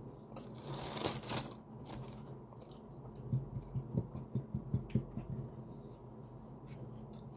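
Paper food bag crinkling and rustling as fried chicken is handled in it, with a quick run of soft low thuds partway through.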